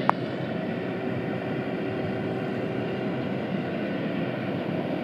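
Heavy diesel machinery running steadily, a continuous engine drone with a faint steady hum, with one sharp click right at the start.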